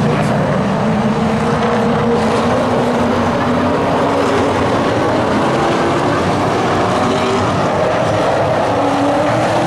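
A pack of Late Model stock cars racing on a short oval, several V8 engines running hard at once in a loud, continuous din. Their pitches rise and fall as they brake and accelerate through the turns.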